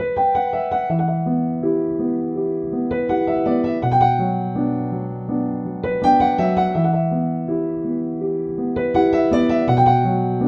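Calm piano music: a slow phrase of soft notes that repeats about every two seconds.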